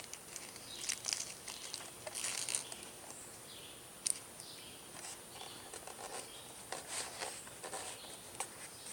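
Faint plastic rustling and small clicks from handling a packet of airsoft BBs, with one sharp click about four seconds in.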